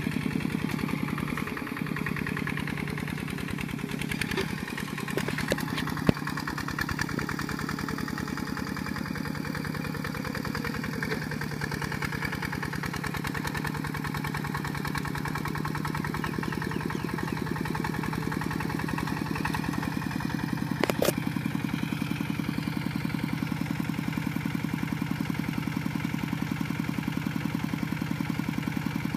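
Kubota RT140 Plus walking tractor's single-cylinder diesel engine running steadily as it pulls the cage-wheeled tractor through mud, its firing rapid and even. A sharp click sounds about six seconds in, and another brief sharp sound about twenty-one seconds in.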